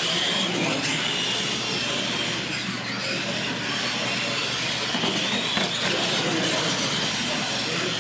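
R/C monster trucks racing on a concrete floor: the electric motors and geartrains whine, the pitch rising and falling with the throttle, over a steady grinding of drivetrain and tyres.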